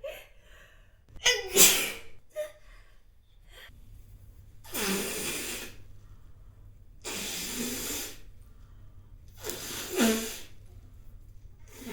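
A woman sneezing: one sharp sneeze about a second and a half in, then three longer, breathy sneezes about two and a half seconds apart.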